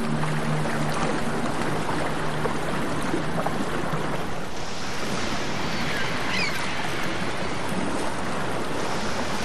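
A steady rushing wash of noise, with two short high chirps about six seconds in. A low hum fades out in the first couple of seconds.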